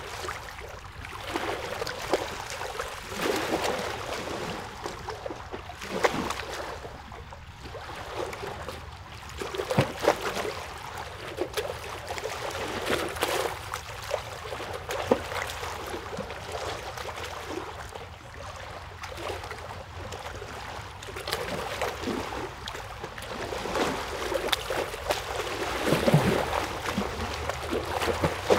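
Moving water trickling and lapping: a steady wash that swells and ebbs every few seconds, with small irregular splashes throughout.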